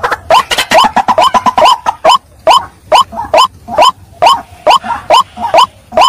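White-breasted waterhen calling, a loud run of short, hoarse notes that each rise at the end. For the first two seconds the notes come fast and overlap; then they settle to about two a second.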